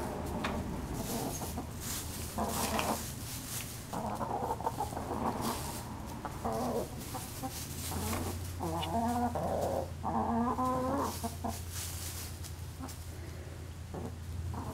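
Hens clucking, with a run of louder, drawn-out calls about nine to eleven seconds in.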